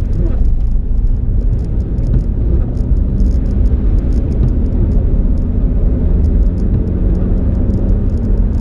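Car driving at speed, heard from inside the cabin: a steady low rumble of engine and tyres on the road, with light, scattered ticking over it.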